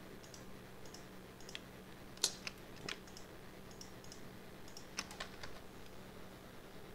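Computer keyboard keys pressed now and then: sparse, irregular clicks, a few sharper than the rest, over a faint steady hum.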